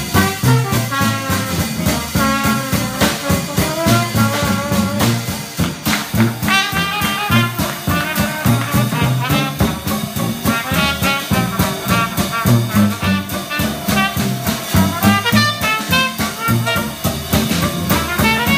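Traditional jazz band playing a swing tune live: a trombone lead gives way to a cornet solo about six seconds in, over tuba and drums keeping a steady beat.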